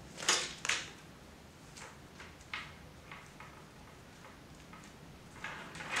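Willow rods rustling and scraping against each other as they are woven by hand through the spokes of a nest base: two quick scrapes near the start, a few light ticks, then a longer rustle near the end.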